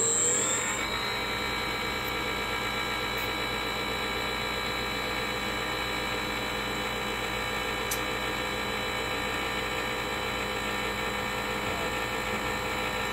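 Turnigy Aerodrive SK3 6374-149kv brushless outrunner motor, driven by an RC electronic speed controller on a super-soft start, finishing its slow climb in pitch in the first second and then running free at full speed. The result is a steady whine of several pitches together.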